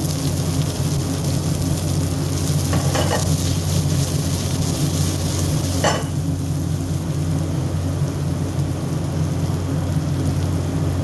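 Finely diced shallots sizzling in hot oil in a frying pan, over a steady low hum. Two brief scrapes about three and six seconds in.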